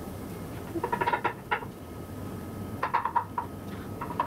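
Kitchen knife chopping mushrooms on a wooden cutting board: two quick runs of taps, about a second in and again about three seconds in.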